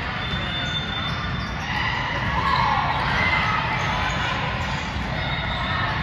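Indoor gym game sounds: a ball bouncing on a hard court against a steady background of crowd noise in a large hall, with a few short high squeaks.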